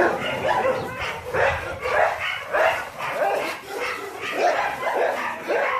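Dogs in a pack barking over and over, about two barks a second without a break.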